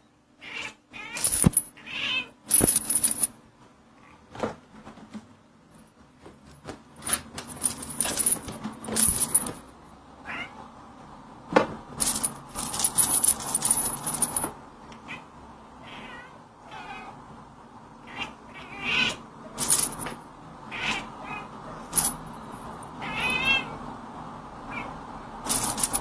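British Shorthair cats meowing now and then in short calls, some of them wavering in pitch. Between the calls come repeated brief bursts of high, bright jingling.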